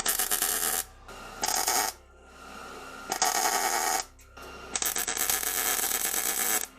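MIG welder laying quick tack welds: four separate bursts of arc noise, the last about two seconds long.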